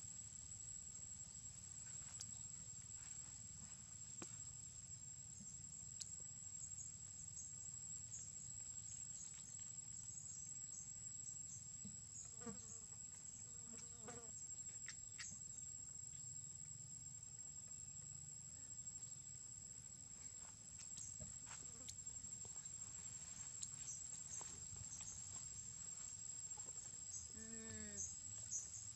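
Steady high-pitched drone of insects trilling, with scattered faint clicks. A few short, faint pitched calls stand out, the clearest about a second before the end.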